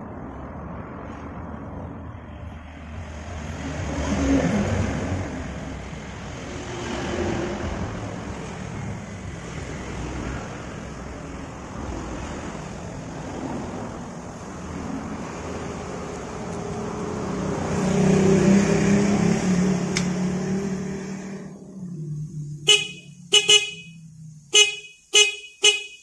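Yamaha Vixion motorcycle's electric horn sounding in a quick run of about six short toots near the end, a test of the horn working again after its faulty horn button was fixed. Before that, a steady rumbling noise that swells twice.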